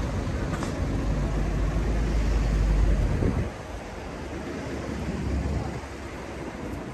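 City street noise with traffic running. A low rumble builds for about three seconds, then drops off suddenly, leaving a quieter steady hum of traffic.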